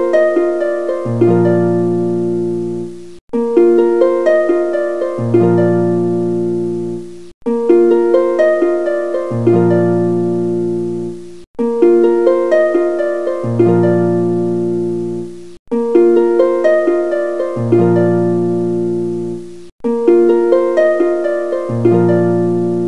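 Background music: a short plucked, harp-like phrase looped over and over, restarting about every four seconds after a brief break.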